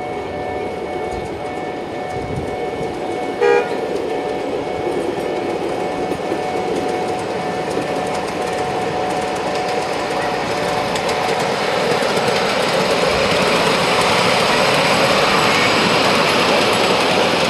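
Ride-on miniature electric train running along its small-gauge track, its running noise growing louder from about ten seconds in as it comes close and passes. A short horn toot sounds once about three and a half seconds in.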